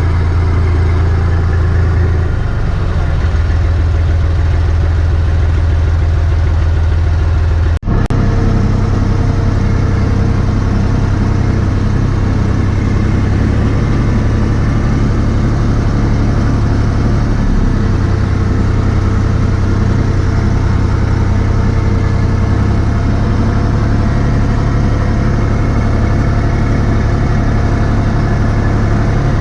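Massey Ferguson 254S tractor engine running steadily, heard from inside the cab, with a brief drop-out about eight seconds in.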